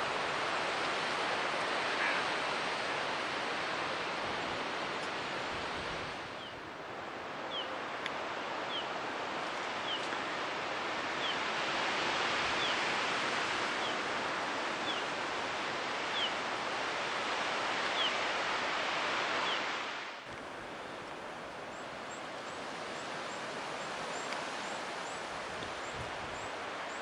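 Steady rushing outdoor background noise that changes abruptly twice. Through the middle stretch a small bird repeats short high chirps about once a second, and near the end faster, very high ticking calls take over.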